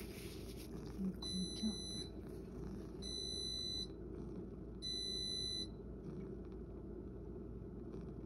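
An electronic beeper sounding: a few short broken beeps about a second in, then two longer steady beeps of under a second each, around three and five seconds in, over a steady low hum.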